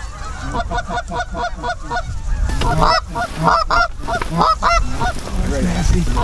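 Canada goose honks and clucks blown on a hunter's goose call: a quick, even run of short notes for the first two and a half seconds, then louder, sharper clucks and honks about three a second.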